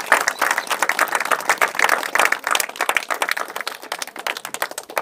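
A small crowd clapping, a dense patter of hand claps that goes on steadily and stops abruptly at the very end.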